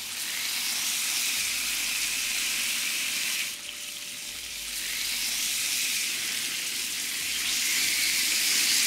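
Marinated chicken thighs sizzling on a hot electric griddle, the sugary teriyaki marinade frying as the pieces go down. The sizzle dips briefly about a third of the way in, then swells louder toward the end.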